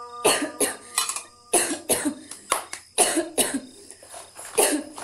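A woman in a hard coughing fit: about a dozen sharp coughs in quick succession, bunched in short runs, stopping shortly before the end.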